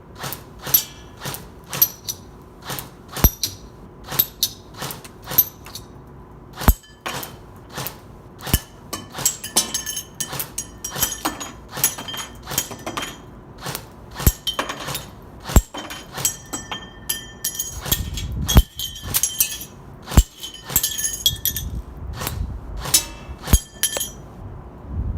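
Airsoft rifle firing single shots, irregularly, about one to three a second, with BBs striking a target that gives a short ringing clink on many hits.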